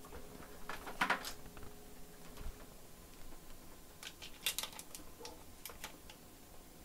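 Faint, scattered light clicks and taps as multimeter probes are handled and set onto the laptop motherboard to check its fuses. There is a small cluster about a second in and another between four and six seconds.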